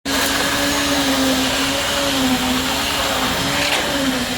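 Motor of concrete-casting machinery running steadily, a loud hum that wavers slightly in pitch over a rushing noise.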